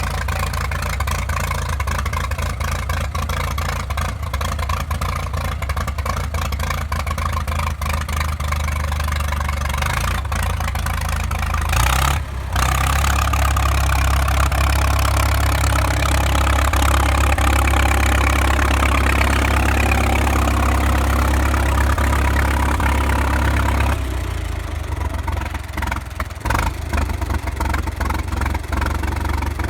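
1937 Farmall F-20's four-cylinder engine running steadily, warming up after a cold start. It runs louder for about twelve seconds from roughly twelve seconds in, then settles back to its earlier pace.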